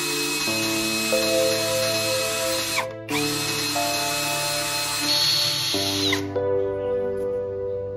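Cordless drill boring into a wooden dowel: a steady motor whine over the bit's hiss. It stops briefly about three seconds in, starts again, and winds down with a falling pitch just after six seconds. Background music plays underneath throughout.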